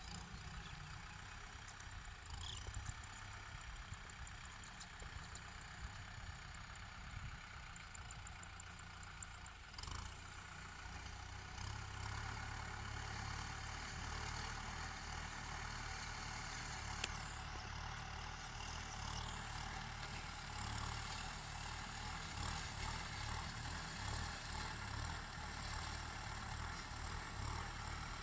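Kubota farm tractor's diesel engine running while ploughing, a steady low rumble that grows louder about twelve seconds in.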